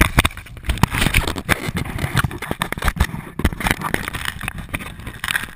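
Handling noise picked up by a GoPro camera inside a volleyball: hands gripping, turning and rubbing the ball's shell, giving many close knocks and scrapes.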